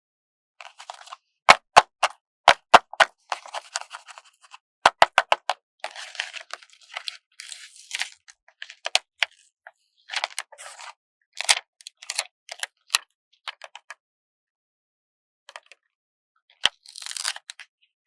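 Stickers being peeled slowly off their backing sheet: crackling, papery peeling with sharp clicks, in short spurts with silent pauses between them, the longest pause coming shortly before the end.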